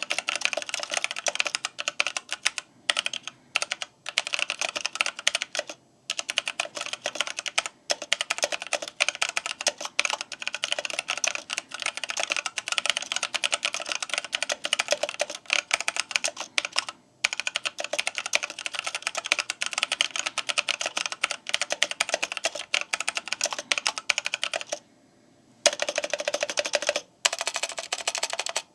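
Fast typing on a stock Massdrop x Input Club K-Type mechanical keyboard with tactile Kailh switches: a dense run of keystroke clacks with a few short pauses and a longer one near the end. The sound is super awful, the worst of any mechanical keyboard in the owner's experience, because the switches are unlubricated.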